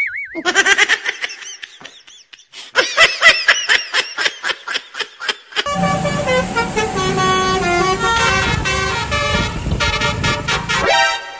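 Telolet basuri multi-tone musical horn: two runs of rapid repeated toots with a wobbling pitch, then a longer tune of changing notes from about halfway, cutting off sharply near the end.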